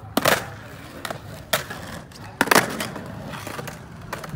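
Skateboard on concrete: three sharp clacks, about a second apart, from the tail popping and the board landing during flatground tricks, with the wheels rolling between them.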